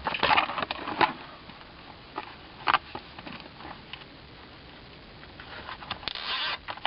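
Zip ties being pulled snug through the holes of plastic radiation-shield plates: scattered clicks and rustles of plastic handling, a few sharper clicks in the first second and a short burst of them near the end.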